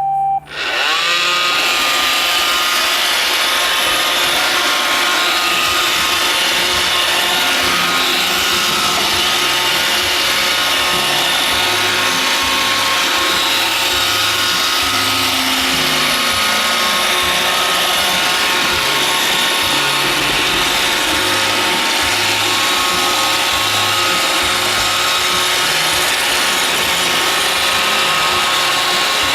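iRobot Roomba 560 robot vacuum switched on and running its cleaning cycle: its vacuum and brush motors spin up about half a second in, then whir steadily and loudly.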